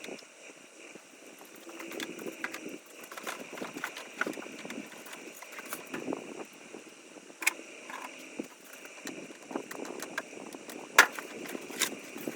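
Hand tools and metal parts being handled during an ATV teardown: irregular clicks and knocks, the sharpest about eleven seconds in.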